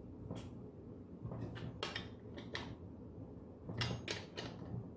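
Combination wrench turning and tightening the bar nuts on a chainsaw's clutch cover: a series of short metallic clicks and scrapes, the strongest near the end. This is the final firm tightening of the guide bar after the chain tension has been set.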